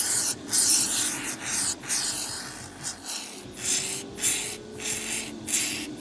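Expanding spray-foam insulation hissing and sputtering out of an aerosol can's applicator straw in short, irregular bursts, about two a second.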